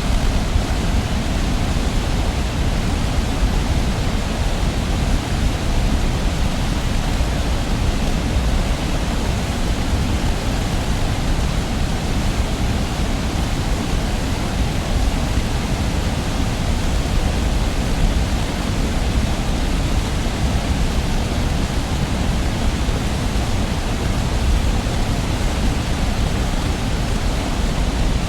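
Heavy waterfall heard from a distance: a steady, even rush of falling water, deepest and strongest in the low rumble.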